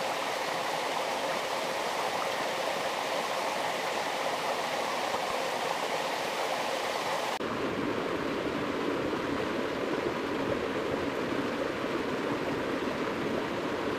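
Steady rushing water of a stream. About seven seconds in the sound changes abruptly, becoming duller and deeper.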